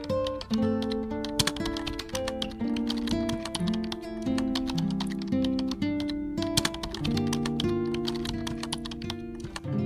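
Rapid computer-keyboard typing clicks, a sound effect running while text types out, over instrumental background music with a melody of short notes.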